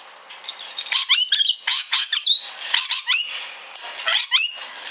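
Rainbow lorikeet making a rapid series of sharp, high-pitched squeaky calls, each sweeping quickly up and down in pitch, starting about a second in.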